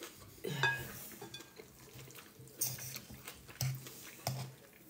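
Metal fork clinking and scraping in a salad bowl as food is picked up: a handful of short, sharp clicks at irregular intervals.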